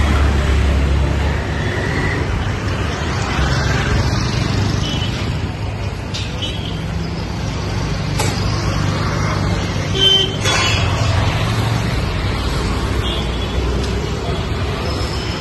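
Busy street traffic: vehicle engines running steadily with a low rumble, and one short, sharp, louder noise about ten seconds in.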